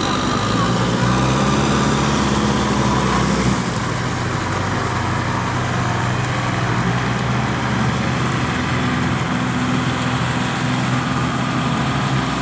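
Engine of a small tractor running steadily while it tills a flooded rice paddy. It runs a little higher for the first few seconds, then settles.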